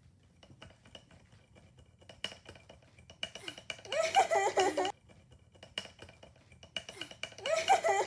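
A person giggling in two short bursts, about four seconds in and again near the end, over light clicks and taps of a hand on a plastic humidifier tank.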